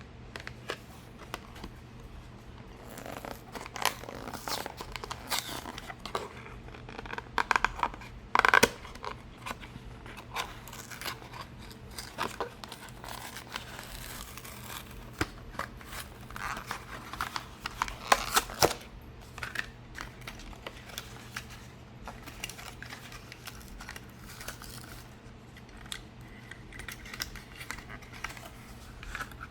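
A die-cast car's blister-card packaging being opened by hand: plastic blister crinkling and cardboard tearing, with irregular clicks and crackles. The loudest bursts come about eight and a half and eighteen seconds in.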